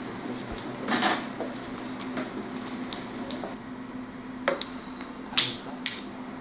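Scattered sharp clicks and small knocks over a steady low hum, with a brief rustle about a second in and two louder clicks about four and a half and five and a half seconds in.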